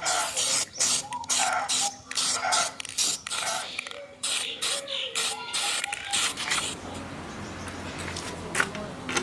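Short bursts of spraying hiss, about two a second. After about six seconds they give way to a quieter, steadier hiss with a low hum.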